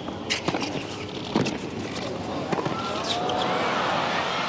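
Tennis racquets striking the ball in a rally, several sharp hits with the loudest about a second and a half in, over the noise of the arena crowd. The crowd noise then swells with shouts and calls as the point ends.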